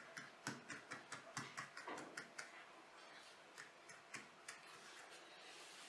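Light, quick taps and dabs of a silicone pastry brush spreading oil over a thin sheet of pastry. They come several a second for the first two seconds or so, then thin out to a few scattered taps.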